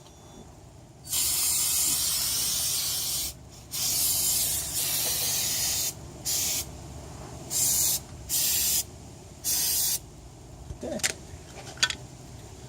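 Aerosol can of rust-protection coating spraying in a series of bursts: two long hisses of about two seconds each, then four shorter spurts, as the last of the can is emptied.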